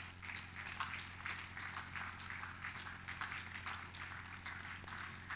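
Faint sound of a large outdoor crowd, with scattered irregular claps and taps, over a steady low hum.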